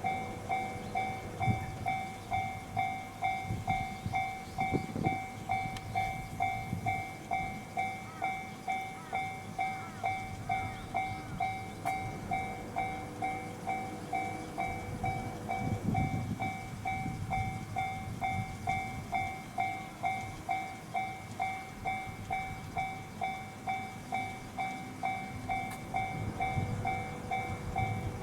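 Japanese railway level-crossing warning bell ringing steadily at about two strokes a second, a two-tone electronic ding, with the low rumble of a train passing underneath.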